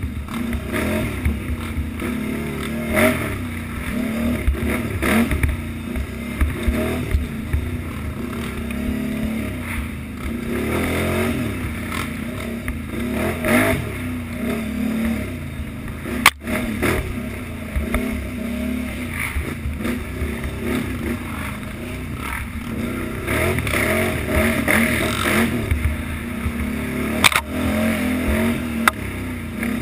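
Utility ATV's engine running hard under race load, revving up and down over and over as the throttle is worked through the turns, with the rattle of the machine over rough ground.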